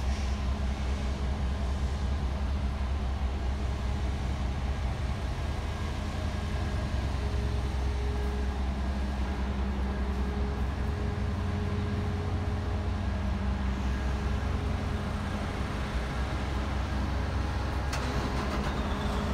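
An engine running steadily: a low drone with a faint even hum, and a brief noisy scuff near the end.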